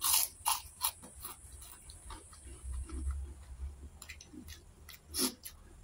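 Close-miked wet chewing of a mouthful of rice, with sharp lip smacks: three in the first second and another about five seconds in.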